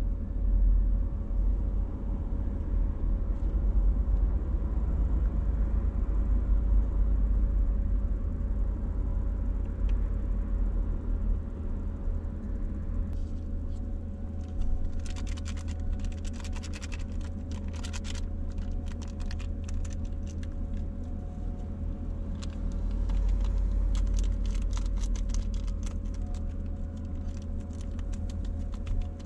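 Instant noodles cooking in a small frying pan on an induction cooktop, over a steady low rumble and a steady hum. About halfway through and again near the end there are dense runs of rapid small clicks and patter from the pan and the utensils being worked in it.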